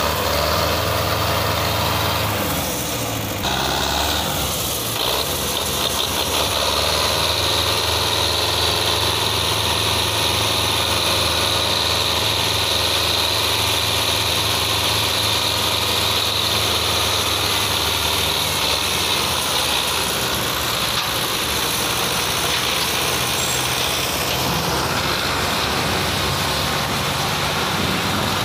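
Belarus 510 tractor's four-cylinder diesel engine running steadily while hauling a heavily loaded sugarcane trolley through soft ground, with a high hiss over it for much of the time.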